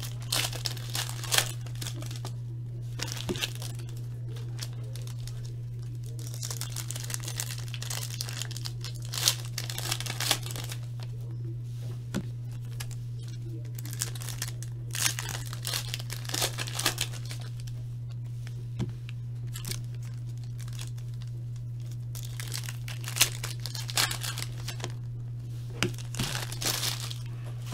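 Trading card pack wrappers being torn open and crinkled by hand, in irregular short bursts of crackling, over a steady low hum.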